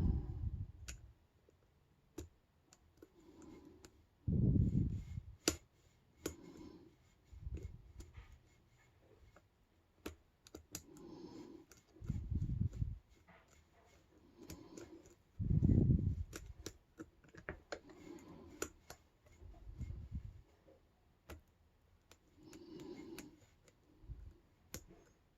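Light metallic clicks and taps of a lock pick working the pin stack of a 5-pin Euro cylinder lock under tension, single-pin picking, irregular and sparse. Several soft low thuds of handling are mixed in.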